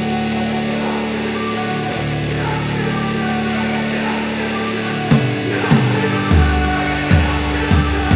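Background rock music led by guitar, held chords at first, with a beat of sharp percussive hits coming in about five seconds in.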